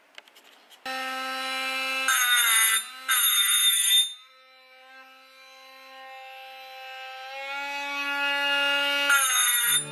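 Hand-held rotary tool with a burr running at a steady high whine as it cuts and radiuses the skirt of an aluminium two-stroke piston. The whine starts about a second in. A gritty grinding hiss rides on it for the next few seconds and returns near the end, and in between the tool runs quieter.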